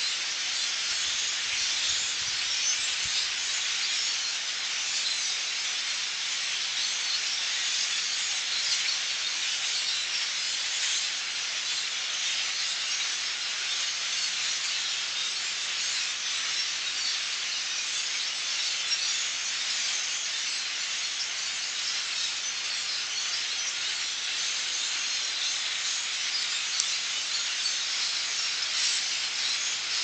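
A huge migrating flock of small birds calling all at once overhead, massed into a steady high-pitched chatter that sounds almost like a hiss.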